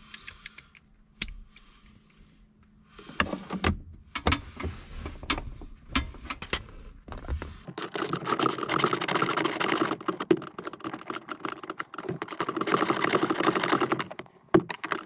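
Steel sockets and hand tools clinking and clattering while someone rummages for a 10 mm socket. Scattered knocks and clicks come first, then from about eight seconds in a dense, continuous metallic jangling lasts about six seconds.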